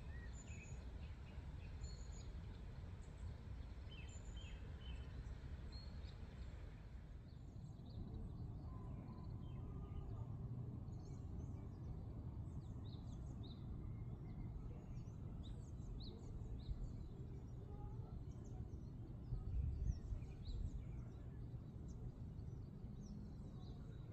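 Wild birds chirping in short scattered calls over a steady low background rumble; the background shifts about seven seconds in.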